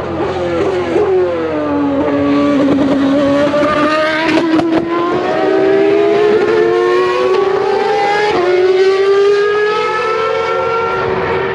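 McLaren Mercedes Formula One car's high-revving engine. The note falls over the first couple of seconds as the car slows, then climbs steadily as it accelerates away, with a brief dip about eight seconds in at a gear change.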